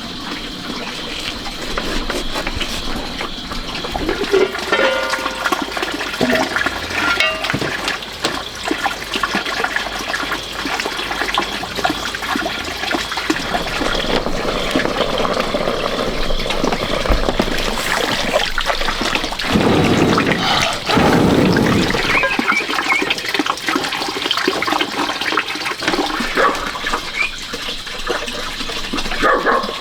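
Water running and splashing steadily, with a louder gush about twenty seconds in.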